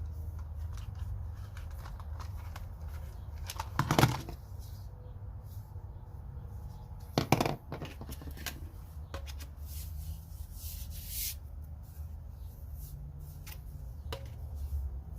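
Hands handling the plastic parts and hose of a cordless handheld vacuum: scattered light clicks and rustling, with two louder knocks about four and seven seconds in, over a low steady hum.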